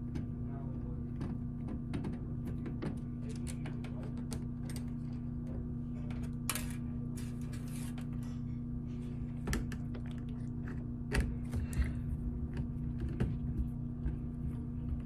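Scattered small clicks and taps of a screwdriver and small screws being worked on a laptop's inner screws, over a steady low hum.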